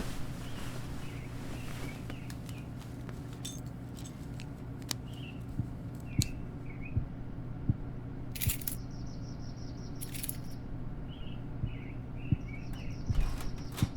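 Short, high bird chirps, scattered one or two at a time, over a steady low hum, with a few soft knocks. Brief rushes of noise come about halfway, about two thirds in and near the end, each followed by a fluttering high tone.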